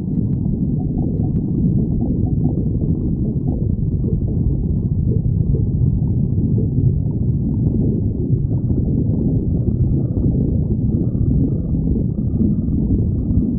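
A person's stomach growling without a break, low in pitch.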